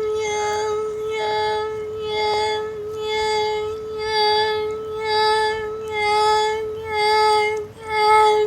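Electronic emergency-alert alarm tone: a steady low tone held beneath a higher, buzzier tone that pulses about once a second, then cuts off abruptly.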